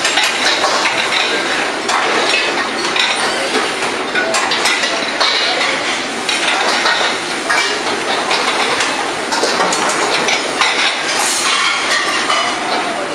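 Busy restaurant kitchen line: metal woks, pans and utensils clinking and clanging in frequent irregular strikes over a continuous rushing noise from the burners and cooking.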